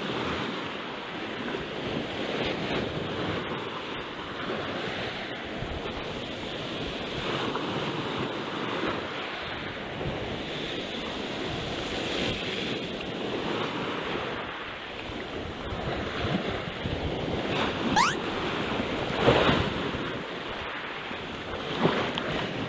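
Sea waves washing against a rocky cobble shore, a steady surge with wind buffeting the microphone. Near the end comes a brief sharp rising whistle, then a louder wash of water.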